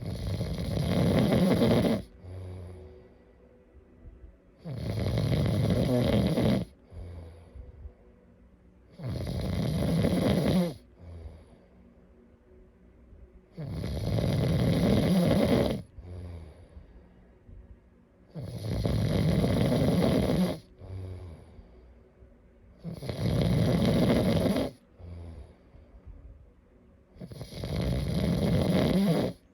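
A sleeping person snoring steadily: seven loud, rasping snores, each about two seconds long and about four and a half seconds apart, with soft breaths between them.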